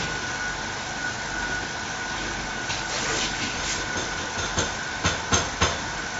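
Steady workshop background noise with a thin high whine, and from about three seconds in a handful of small sharp clicks and clinks, the loudest three close together near the end, as a hand picks through a bin of loose screws.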